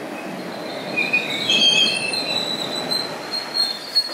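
MBTA Orange Line subway train rolling slowly into the station platform, a steady rumble of the cars with a high, wavering metallic squeal setting in about a second in as it slows.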